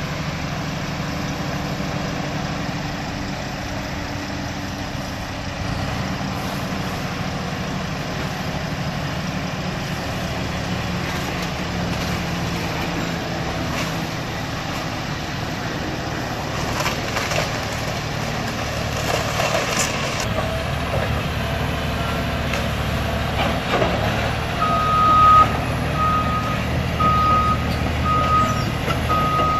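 Cat hydraulic excavator's diesel engine running steadily as it tears into a wood-framed brick house. In the second half come cracks and crashes of breaking timber and falling debris. Near the end a backup alarm beeps about once a second.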